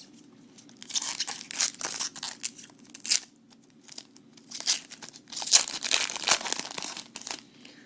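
Foil wrapper of a 2012 Bowman baseball card pack being torn open and crinkled, in two spells of irregular crackling rustle with a short pause between.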